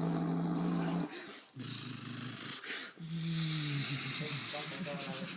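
A man's voice making a long, low buzzing vocal sound effect, held steady, twice, as in mouth-made sounds for a toy helicopter.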